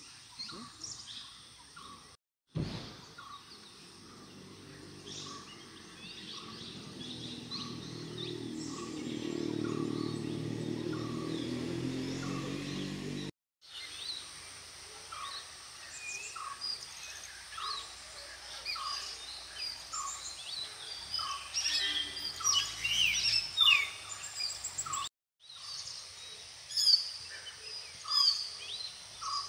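Forest birdsong: several birds chirping, with one bird repeating a short single note at an even pace. Through the first third a low humming drone builds up and holds, then stops abruptly, and the sound drops out briefly at each cut.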